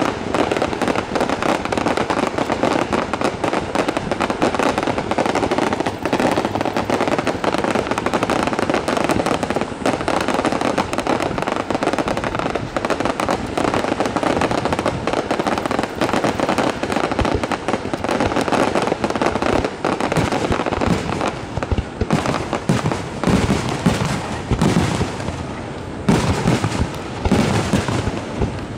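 Fireworks barrage: a dense, continuous rattle of launches and bursts from many shells fired in rapid succession. About three-quarters of the way through it thins into separate, louder booms.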